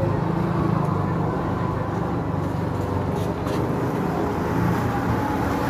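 An engine running steadily at an unchanging low pitch, with street noise around it.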